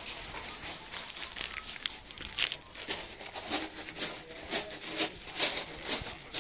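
Footsteps crunching on loose gravel, a steady walking pace of about two steps a second, clearer from about halfway through.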